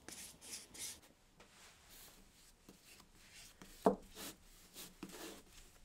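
Bristle brush swishing over bare oak, spreading beeswax oil finish in a few soft strokes, with a single light knock about four seconds in.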